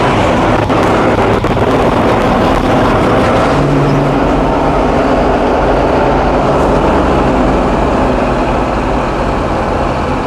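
High-pressure sewer jetter running at work: the steady rush of the water jet blasting through a large corrugated drain pipe over the constant drone of the jetter's engine.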